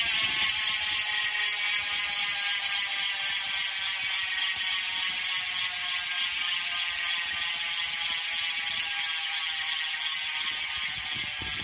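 Freehub of a rear FFWD full-carbon wheel with a DT Swiss hub, spun freely by hand and coasting. The ratchet clicks so fast they blur into a loud, steady buzz that drifts slightly lower in pitch as the wheel loses speed.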